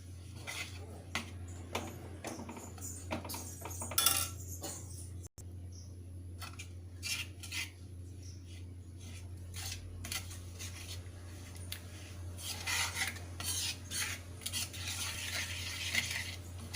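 A spoon stirring a simmering jaggery syrup in a kadhai, scraping and clinking against the pan again and again, with one sharper knock about four seconds in and busier scraping near the end. A steady low hum runs underneath.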